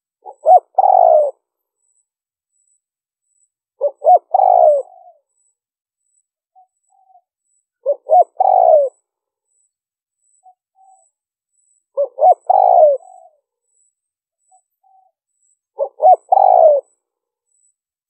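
Spotted dove cooing: five phrases about four seconds apart, each two short notes followed by a longer, drawn-out coo.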